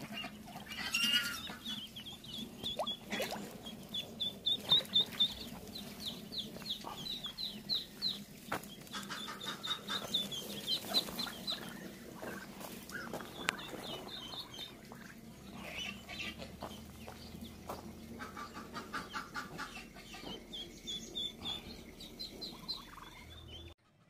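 Ducklings peeping: quick runs of high, short peeps, several a second, coming in bursts with short gaps. A faint steady low hum sits underneath.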